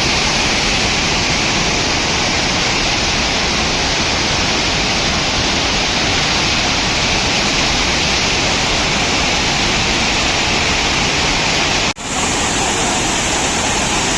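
Tirathgarh waterfall's steady rush of falling water, loud and even, with a brief sudden break about twelve seconds in where the recording cuts.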